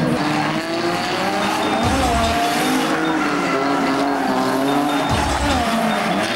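Drift cars sliding: engines revving up and down with throttle, over tyres squealing.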